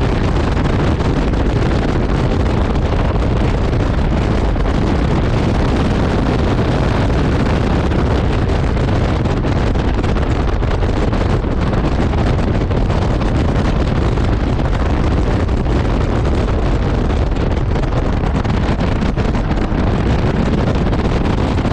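Heavy, steady wind buffeting on the microphone of an open-cockpit Caterham 7 Supersport at track speed, with the car's engine and tyre noise running beneath it.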